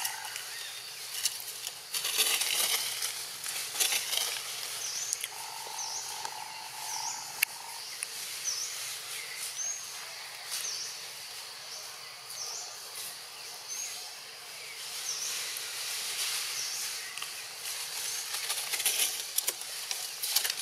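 Outdoor ambience: a steady high hiss with a short high chirp repeating about once a second. A held mid-pitched tone sounds for about two seconds around the fifth second, with bursts of rustling near the start and near the end.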